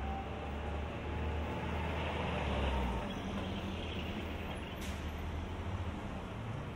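City street traffic with a heavy vehicle's engine rumbling close by. The rumble is strongest for the first three seconds, then eases, with a single sharp click near five seconds.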